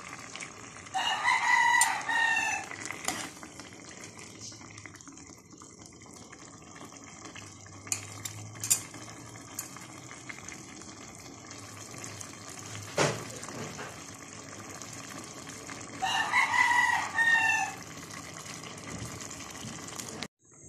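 A rooster crows twice, about a second in and again near the end, each crow a long call that falls in pitch as it ends. Underneath, a pot boiling on a gas stove keeps up a steady hiss, with a few sharp clicks in between.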